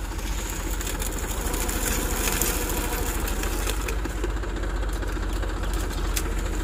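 New Holland tractor's diesel engine idling steadily, with an even low firing rhythm.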